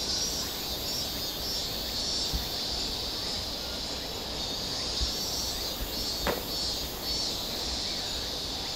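Cicadas buzzing in a steady high drone that swells and fades in patches, with a fainter pulsing chirr above it. A single sharp click comes about six seconds in.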